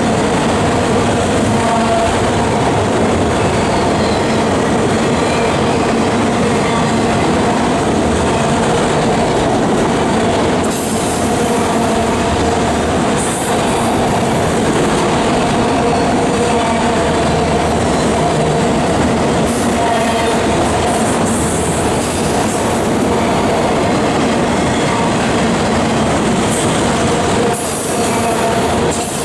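CSX autorack freight train rolling past, its steel wheels running on the rail in a steady loud roar with a constant ringing wheel squeal.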